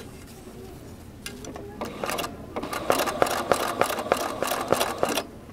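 Domestic sewing machine stitching free-motion, couching silk ribbon down with monofilament thread. After a couple of seconds of light handling clicks, it runs a quick burst of stitches at about five or six a second and stops just before the end.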